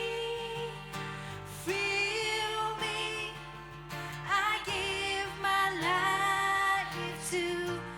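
Slow worship song: singing over instrumental accompaniment.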